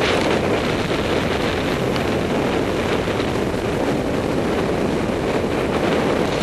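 Steady wind rushing over the microphone of a paraglider pilot's camera in flight, an even rushing noise with no breaks.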